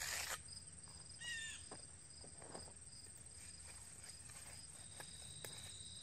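Magnesium float scraping over wet concrete, once clearly at the start and then faintly, over steady high insect trilling, with a short chirp about a second in.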